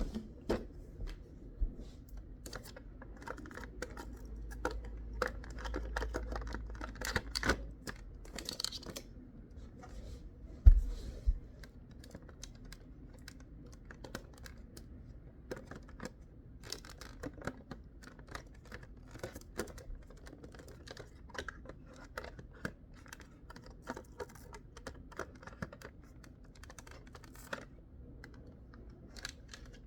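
Parts and packaging of a Hoover carpet shampooer being handled: scattered clicks, taps and rustling, with one loud knock about ten seconds in.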